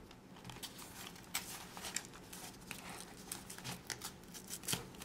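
Faint, irregular crinkling and rustling of newspaper and foil-lined plant wrapping as hands handle it and pick it open.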